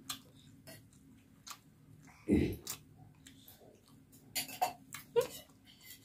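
Drinking from a steel tumbler: quiet sips and swallows, with one louder low gulp a little over two seconds in and a few small mouth clicks about a second and a half later.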